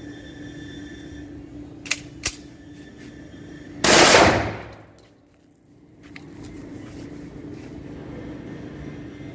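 Zigana F pistol fired: a very loud blast lasting under a second about four seconds in, dying away quickly. It comes after two sharp clicks about half a second apart.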